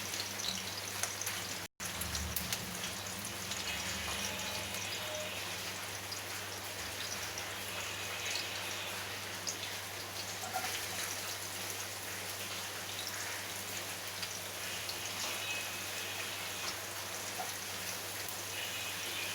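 Chopped onion frying in hot oil in a kadhai: a steady sizzle with fine crackling, broken by a brief drop-out about two seconds in.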